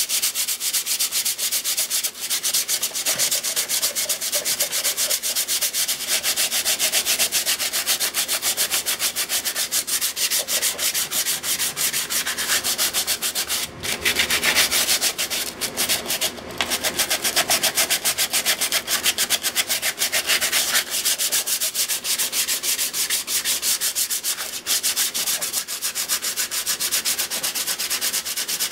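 Sandpaper rubbed by hand in quick, steady back-and-forth strokes over the rusted sheet-metal top of an electrical box, with a couple of brief breaks near the middle. The rust is being scraped off and the surface roughed up so a filler compound will bond to it.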